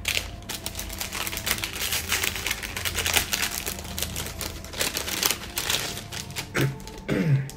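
Crackly rustling and crinkling of a paper wrapper and a plastic bag as a small wrapped package is torn open and unwrapped by hand.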